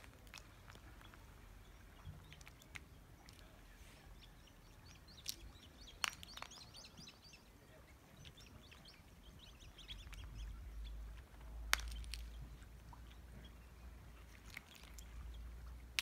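A gull working at clam shells on a rock: a few sharp, separate clicks of bill and shell, with faint high bird calls around the middle. Wind rumbles on the microphone from about ten seconds in.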